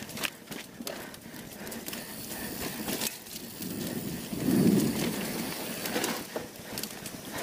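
Polygon Siskiu T7 mountain bike riding down a dirt trail: tyres on dirt with irregular rattles, clicks and knocks from the bike over bumps. A louder low rush comes about four and a half seconds in.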